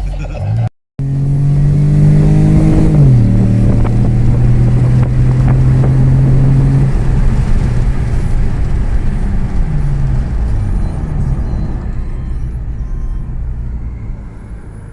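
Car engine running hard at speed: its pitch climbs, drops about three seconds in, holds steady for a few seconds, then falls away again as it eases off.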